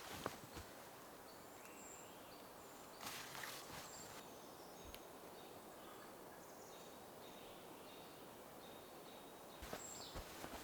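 Faint forest ambience near silence, with a few short, high, distant bird chirps and some brief soft rustles or clicks.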